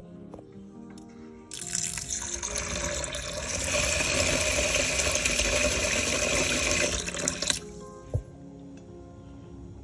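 A stream of water running into a plastic bowl of soaking rice. It starts about a second and a half in and stops sharply after about six seconds. Soft background music plays throughout.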